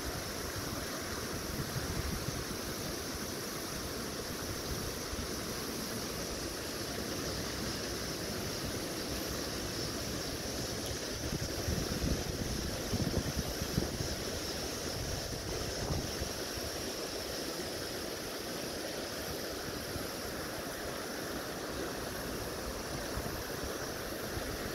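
Steady rush of flowing creek water, with wind buffeting the microphone in low gusts about halfway through.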